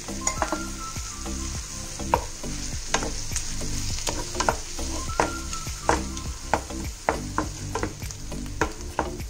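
Wooden spatula stirring and scraping wet spinach and moong dal around a nonstick frying pan, about two strokes a second, over the sizzle of the food cooking in the pan with its freshly added water.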